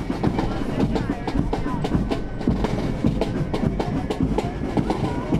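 Parade marching band playing, with many quick drum strokes to the fore, over the chatter of a street crowd.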